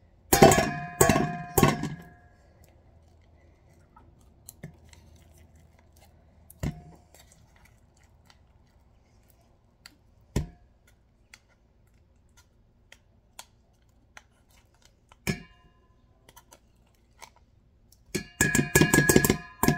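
A spoon scooping canned wet pet food and knocking it off against the metal can and stainless steel bowls: sharp clanks that ring briefly. Three come close together near the start, single ones follow every few seconds, and a quick run of clanks comes near the end.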